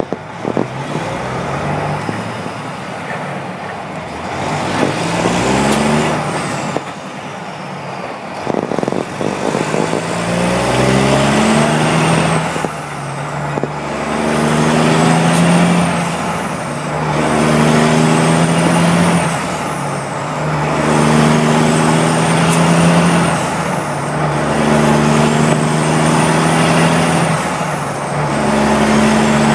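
Kenworth T604 tow truck's diesel engine, heard through 7-inch straight stacks, pulling up through the gears. The note climbs, drops at each shift and climbs again every few seconds, with a high whistle rising on each pull.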